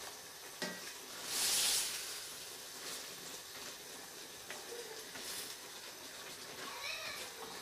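Beef keema and tomato purée sizzling in a steel pot while being stirred with a wooden spoon, with a louder burst of hiss about a second and a half in.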